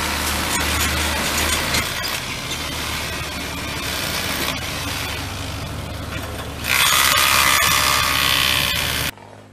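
An engine running steadily under the clatter of metal work on the sign. About seven seconds in, a power tool starts up with a loud, high whine for about two seconds, then the sound cuts off suddenly.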